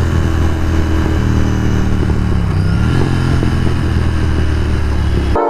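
Royal Enfield Continental GT 650's parallel-twin engine running at steady cruising speed in fifth gear through a Red Rooster aftermarket exhaust, with no crackle from the exhaust. The steady drone holds without rising or falling, then cuts off abruptly near the end.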